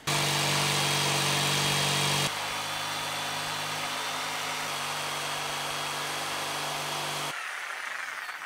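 A jigsaw cuts a circle out of a thick 3/4-inch nylon sheet, its motor running steadily. The sound drops in level a couple of seconds in and stops about a second before the end.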